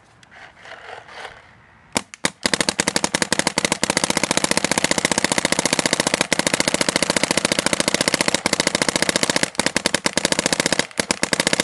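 Angel A1 electronic paintball marker firing a single shot about two seconds in, then a long, very fast unbroken string of shots with a few short breaks near the end. The marker is freshly tuned and reflashed to fire fast.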